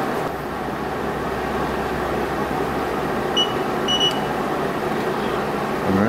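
Two short high beeps about half a second apart from a digital LiPo cell checker as the battery's balance plug is connected to it, over steady background noise.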